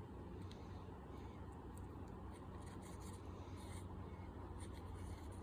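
Faint scraping and light clicking of small metal parts as drill-press chuck jaws are worked by hand into line in the chuck body, over a steady low hum.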